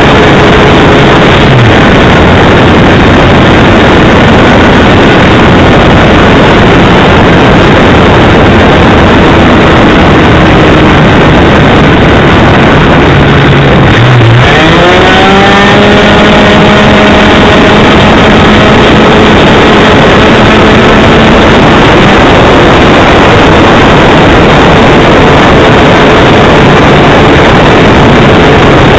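Radio-controlled helicopter's engine and spinning rotor blades heard from a camera mounted on the machine, loud and distorted with rushing air noise. The engine's pitch dips and then climbs again about halfway through, as the helicopter manoeuvres.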